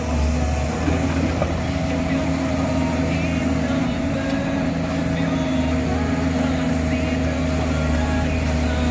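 Komatsu excavator's diesel engine running steadily with an even, constant drone.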